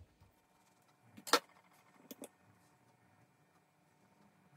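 One sharp click a little over a second in and two faint ticks about a second later, from a spoon and croissants being handled while the croissants are filled with spread.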